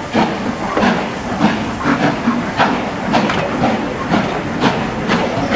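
Steam locomotive working its train slowly out of a station, with regular exhaust beats at roughly two to three a second and a steady hiss of steam, heard from a carriage behind the engine.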